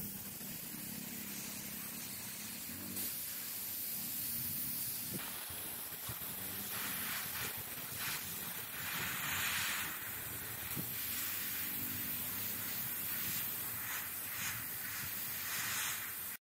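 Airbrush hissing as it sprays paint onto a taped-up scale-model bench seat, the hiss swelling and easing in places.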